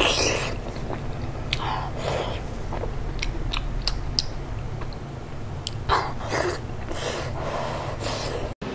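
Close-up mouth sounds of a person biting and chewing soft braised pork: wet chewing with scattered sharp little clicks and lip smacks, which break off abruptly near the end.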